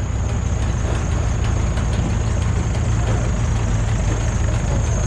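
A large engine idling steadily: an even low rumble with a thin steady high whine above it.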